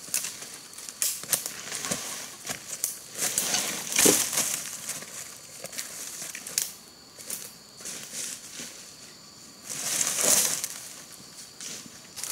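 Footsteps in rubber boots through dry leaf litter and undergrowth: leaves crunching, twigs snapping and plants brushing in irregular rustles, loudest about four seconds in and again near ten seconds.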